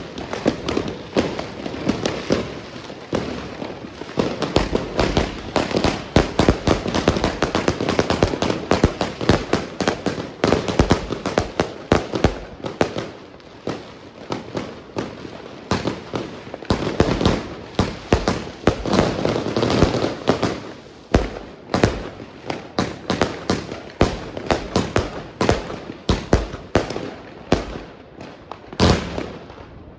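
Consumer fireworks going off in a dense barrage: rapid bangs and crackling packed close together, thinning to more separate sharp reports over the last third.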